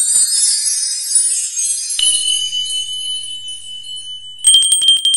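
Sound effects of an animated intro: a shimmering run of high sparkling chimes, then a bright ding about two seconds in that rings on steadily. Near the end comes a quick rattle of about eight clicks with another high ring over them.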